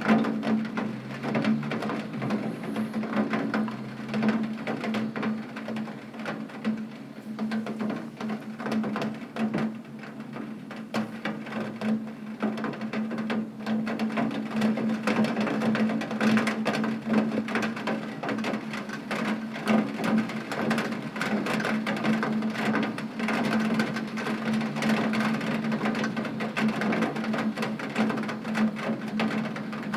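Heavy rain drumming on a window pane: a dense, uneven patter of drops, with a steady low hum underneath.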